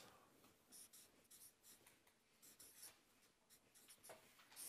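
Faint scratching and squeaking of a marker pen writing on flipchart paper, in short strokes with brief pauses between them.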